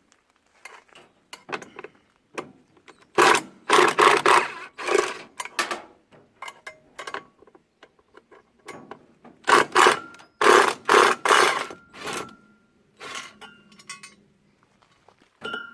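Hand-tool work on washing-machine parts: irregular knocks and clatter of metal, in a run of rapid strikes about three seconds in and another about ten seconds in, with smaller clicks between.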